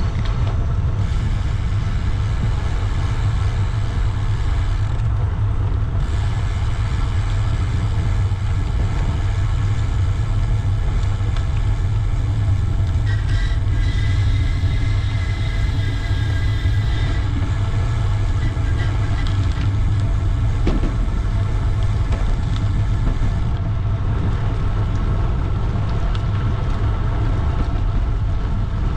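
Steady low rumble of riding noise picked up by a bicycle-mounted camera, with road traffic mixed in. A faint high whine comes in about 13 seconds in and lasts some four seconds.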